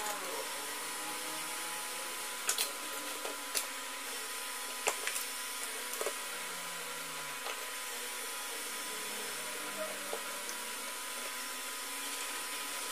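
A steady background whir with a handful of sharp clicks and taps from pliers and side cutters being handled on a workbench, most of them in the first half.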